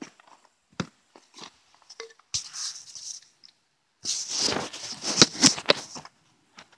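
Boot footsteps on dry dirt, then rustling and several sharp knocks as the camera is handled and set down on the ground, loudest from about four to six seconds in.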